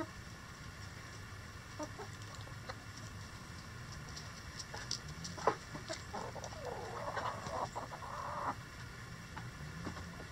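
Backyard chickens clucking, with scattered short calls and a livelier run of clucking a few seconds past the middle. A single sharp click stands out about five seconds in.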